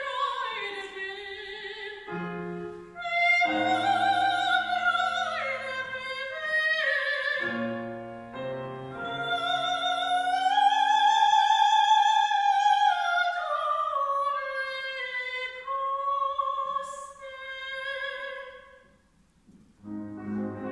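Soprano singing an operatic line with a wide vibrato, with piano chords under the voice for the first half. Around the middle the voice rises to a long high note and then comes down again, and just before the end the sound drops away briefly.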